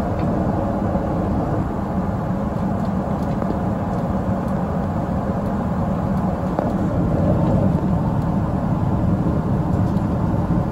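Steady low roar inside the cabin of a Boeing 777-300ER in flight: the drone of its GE90 engines blended with the rush of air along the fuselage.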